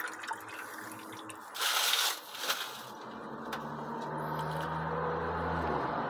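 Automatic transmission fluid dribbling from the spin-on filter mount into a metal drain pan, with a louder splash about two seconds in. A low hum slowly builds in the second half and stops near the end.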